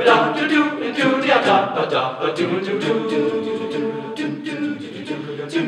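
Young men's choir singing a cappella.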